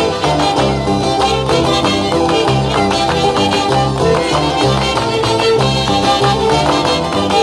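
Instrumental break of a Peruvian huayno folk song: a band plays the melody over a steady, rhythmic bass line, with no singing.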